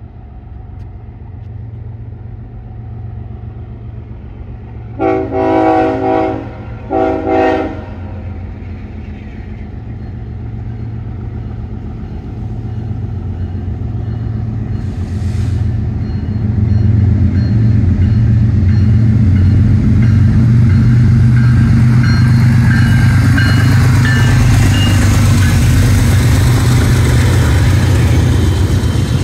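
BNSF diesel freight locomotives approaching with their engines rumbling, sounding the air horn in two blasts, the first longer, about five seconds in. The engine noise then swells to a loud rumble as the intermodal train reaches and passes, with wheel-on-rail noise and high squeals joining near the end.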